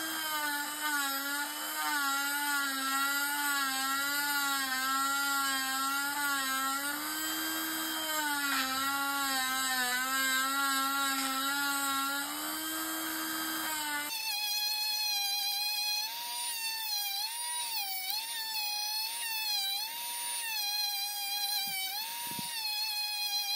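Small cordless rotary tool running with a buffing disc, its motor whine wavering in pitch as the disc is pressed against an ebonite pipe stem to spread carnauba wax. About two-thirds of the way through, the sound switches abruptly to a higher, wavering tone.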